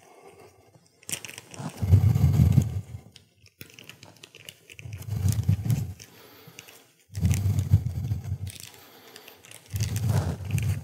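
A small plastic packet of grease crinkling and rustling as it is handled and torn open by hand, in four separate bouts.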